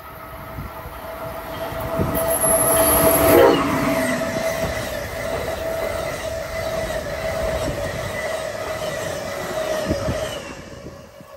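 Amtrak passenger train passing close at speed: the noise swells to its loudest about three seconds in as the head end goes by, then the stainless-steel Amfleet coaches roll past with a steady whining tone over the wheel noise, fading near the end.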